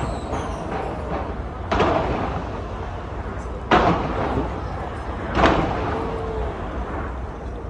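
Fireworks shells bursting: three loud booms roughly two seconds apart, each trailing off, over a continuous low rumble.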